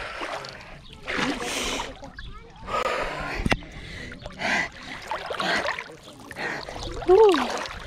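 A woman's breathing and gasps as she lowers herself into lake water, with water splashing around her. Near the end there is a short, loud tone that slides up and down.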